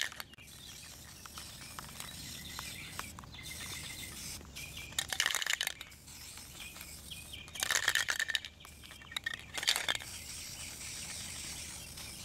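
Aerosol spray paint can hissing in short bursts of under a second each, several times as tan paint is sprayed on.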